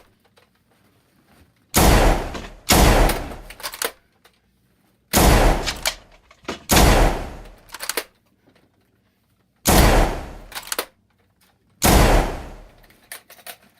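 Six single gunshots at irregular intervals, each sudden and loud with an echoing tail that fades over about a second, quiet between shots.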